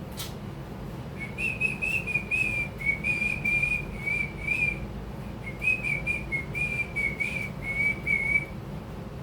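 A person whistling a tune: two phrases of short, wavering notes with a brief break about halfway through.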